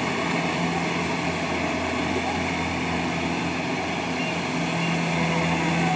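Rice combine harvester engine running steadily, a constant low drone that holds an even pitch.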